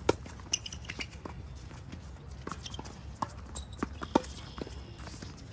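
Tennis rally on a hard court: sharp pops of the ball coming off the racquets and bouncing on the court, one or two a second, the loudest just after the start and about four seconds in.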